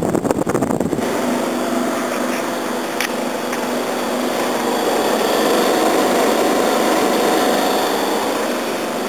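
Reverse-cycle air conditioner running steadily in heat mode on low, its fan and compressor giving a continuous machine sound with a few steady tones. There is some knocking in the first second and a single click about three seconds in.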